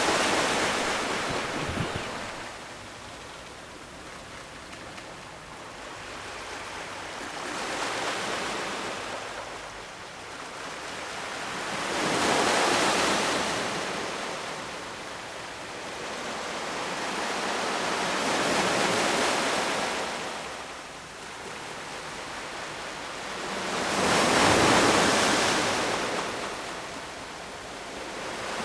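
Ocean waves breaking on a shore, the surf swelling and falling back in slow surges about every six seconds, the loudest about halfway through and again near the end.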